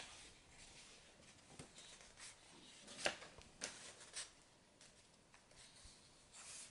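Faint rustle and a few soft taps of stiff scrapbook pages being turned and handled, the clearest about three seconds in.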